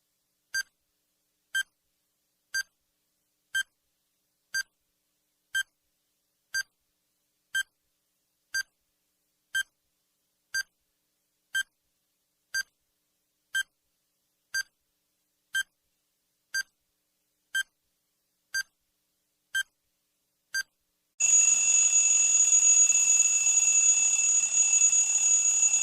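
Countdown timer sound effect: a short high beep once a second, then, about 21 seconds in, a loud continuous alarm ring as the countdown reaches zero.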